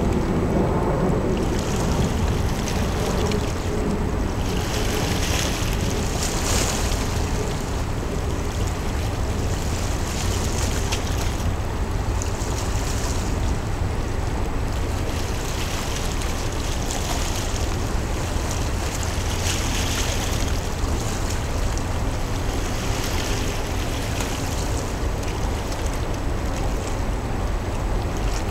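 Small waves washing against the shore every two to three seconds, over a steady low rumble. A low hum fades out in the first few seconds.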